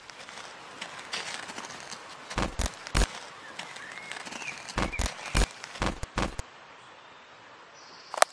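Outdoor ambience: a steady hiss broken by about eight sharp snaps and cracks, some in quick pairs, with a few faint bird chirps. The hiss thins out about six and a half seconds in, and a single click comes near the end.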